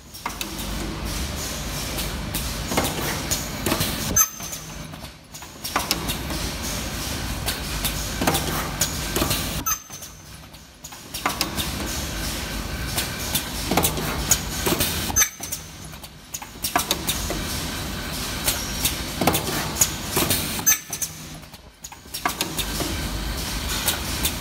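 Automatic elastic-band ultrasonic welding and cutting machine running through its repeating cycle: clatter and quick clicks, broken by a short lull about every five and a half seconds.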